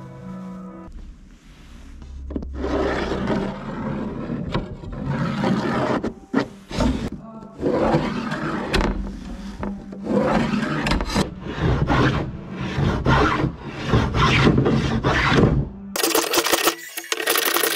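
A music tail fades out in the first second. Then comes a run of hand-tool rubbing and scraping strokes on wood, and near the end a wooden hand plane taking shavings off a board edge.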